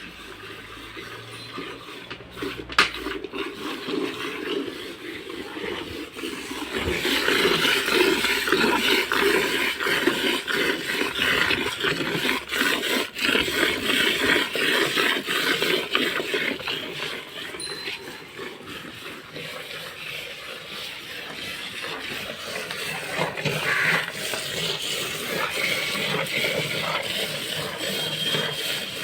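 A cow being milked, with milk streaming into a pail in a quick, steady rhythm.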